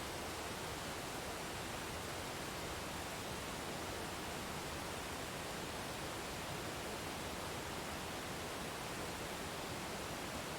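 Waterfall rushing in a steady, even hiss with no breaks or separate splashes.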